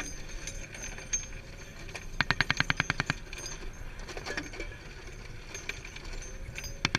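A short burst of M2 .50-calibre heavy machine-gun fire, about ten rounds in a second, about two seconds in. Another burst starts right at the end.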